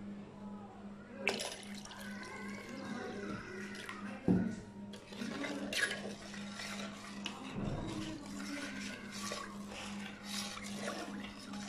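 Water sloshing and splashing in a metal pot as a drink is poured and stirred with a spoon, with occasional sharp clinks of metal, over a steady low hum.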